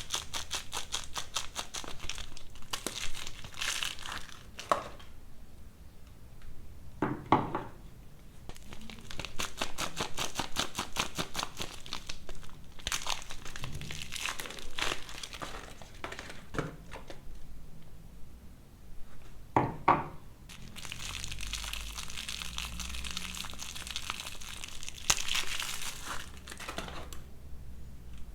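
Soap packaging being crinkled and torn open as soap bars are unwrapped, in stretches of rapid crackling with short pauses and a few soft knocks.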